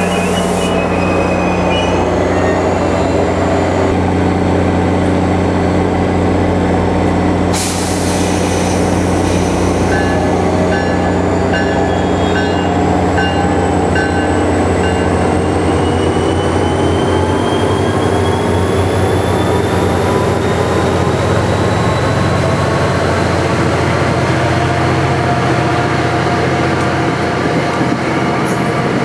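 NJ Transit passenger train of Comet coaches behind GP40PH-2 diesel locomotive 4111 moving along a station platform, with a steady low hum under the rolling noise. There is a short clatter about eight seconds in. From about halfway through, a thin whine climbs steadily in pitch.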